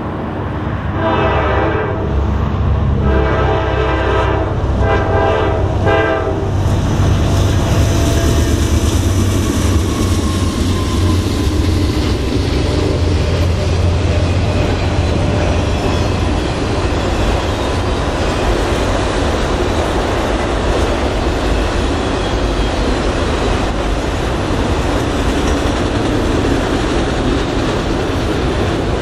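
Freight train led by two GE Dash 9-44CW diesel locomotives: several horn blasts in the first six seconds over a heavy engine rumble. The rumble fades through the middle, giving way to the steady rolling clatter of empty auto rack cars passing.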